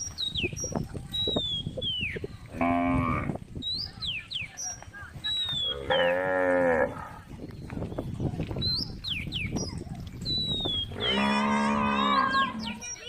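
Cows mooing: three long, deep moos, a short one about three seconds in, a longer one around six seconds, and the longest near the end.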